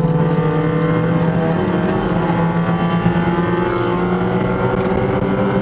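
Spec Miata race car's four-cylinder engine running hard at high revs, heard from inside the cockpit. Its pitch holds for about two seconds and then climbs slowly.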